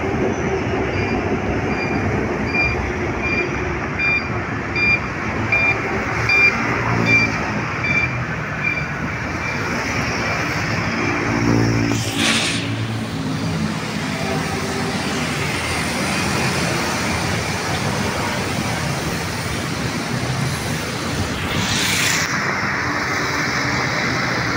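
City street traffic noise with motor vehicles running and passing. A repeating electronic beep sounds for the first third, about two beeps a second, and two brief hissing bursts come about halfway through and near the end.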